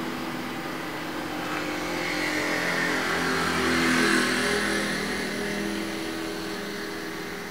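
A motor vehicle's engine passing by, its sound swelling to a peak about four seconds in and then fading, over a steady background hum.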